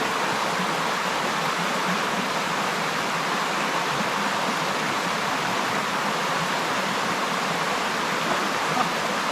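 Steady rushing of a small creek's moving water, an even hiss with no breaks.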